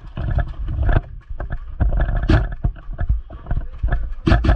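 Heavy rumble and irregular knocks of a player moving with a body-worn camera: footsteps and gear jostling the microphone. Near the end, rapid even sharp cracks begin, an airsoft rifle firing on full auto.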